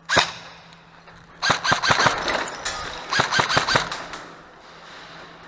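Airsoft gun fire, echoing: a single sharp shot, then two short rapid bursts of about ten shots a second, roughly a second and a half apart.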